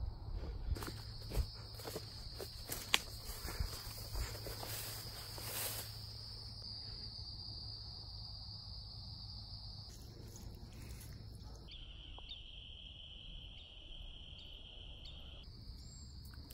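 A chorus of crickets and other insects trilling steadily at a high pitch, dropping to a somewhat lower steady trill for a few seconds near the end. Soft knocks and rustling are heard over it during the first six seconds.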